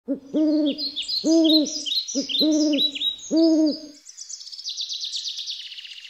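Birdsong: a run of low hoots about one a second, with repeated high chirping calls over them. After about four seconds the hoots stop and a rapid high trill of chirps carries on, slowly fading.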